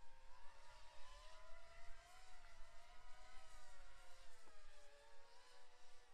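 FPV racing quadcopter's brushless motors and propellers buzzing in flight, a wavering whine whose pitch shifts with throttle and sags slightly about four seconds in.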